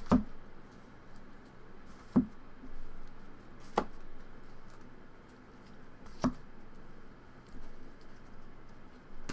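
Stacks of sleeved trading cards handled and set down on a playmat: four sharp taps a second or two apart, with soft sliding and shuffling of cards between.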